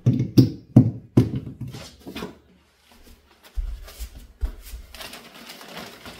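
A quick run of about four sharp knocks and clicks as a plug-in power adapter is handled and pushed into a wall socket, then a few low bumps and a soft rustle of plastic packaging near the end.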